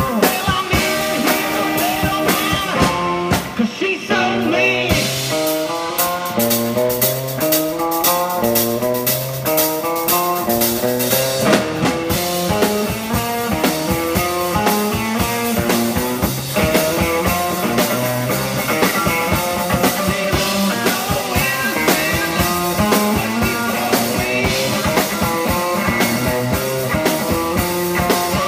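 Live guitar and drum kit playing an instrumental rock passage: the guitar runs through a repeating pattern of quick notes over a steady drum beat.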